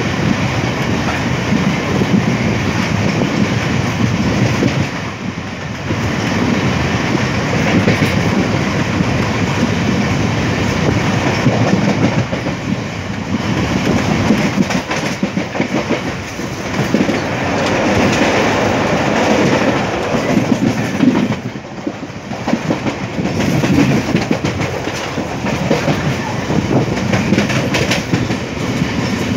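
Indian Railways passenger train running at speed, its wheels clattering over the rail joints, heard at an open coach door. The noise stays loud and steady, easing briefly twice.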